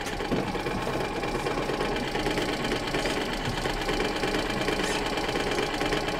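Boat's outboard motor running steadily at low trolling speed, a fast even engine beat with no change in pitch.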